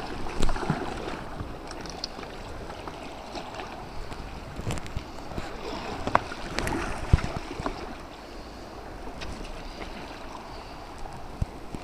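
Water sloshing and splashing around a kayak, with short knocks of paddle and hull scattered through it, over wind on the microphone.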